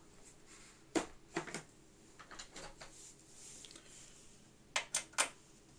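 Small hand tools and screws being handled: scattered clicks and light taps, then three quick sharp clicks near the end, as a screwdriver is sought and used on the computer case screws.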